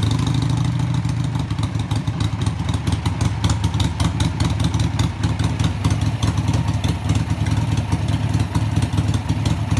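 Carbureted Harley-Davidson V-twin engine idling steadily just after being started.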